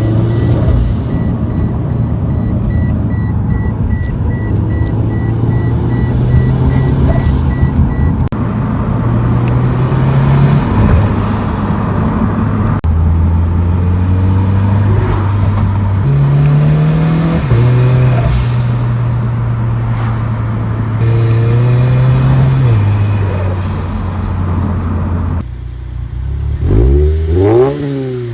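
Turbocharged Scion FR-S flat-four engine and exhaust running while driving. The engine pitch holds steady for stretches and steps up or down every few seconds. Near the end comes a quick rise and fall in pitch, like revving.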